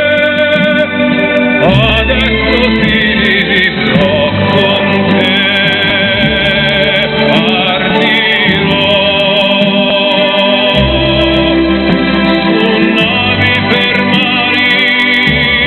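A song with a singer holding long, wavering notes, played over the fountain show's loudspeakers.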